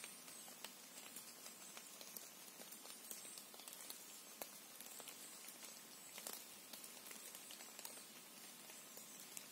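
Near-silent forest ambience: a faint hiss with scattered, irregular soft ticks, several a second.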